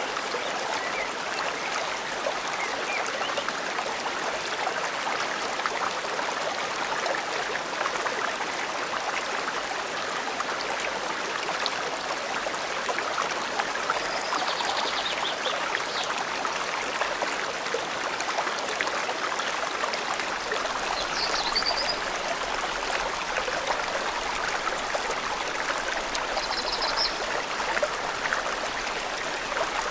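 Forest stream flowing steadily, an even rush of running water. Three short, faint, high bird chirps come through about halfway, two-thirds of the way, and near the end.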